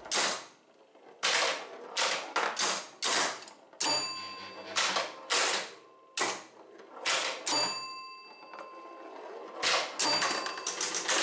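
Bally 4 Queens electromechanical pinball machine in play: irregular clacks and knocks from the flippers, the ball striking targets and bumpers, and the scoring mechanism, with ringing scoring tones a few times.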